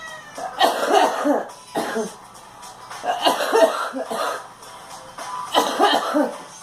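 A girl coughing in repeated fits, several harsh coughs at a time, with bouts starting about half a second, three seconds and five and a half seconds in.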